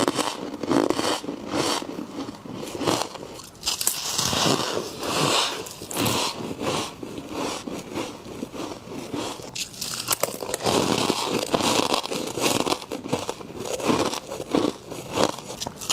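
Frost being bitten and chewed close to the microphone: a dense, irregular run of crisp crunches and crackles, bite after bite.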